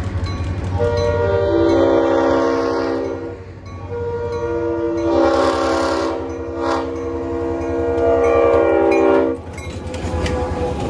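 Multi-chime locomotive horn sounding two long blasts, each a chord of several notes, over the steady low rumble of the locomotive. Two long blasts is the standard signal that the train is about to proceed.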